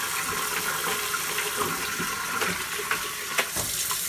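Kitchen tap running steadily, its stream splashing into a glass fishbowl and a stainless steel sink while a bristle brush scrubs inside the bowl. There are a few sharp knocks near the end.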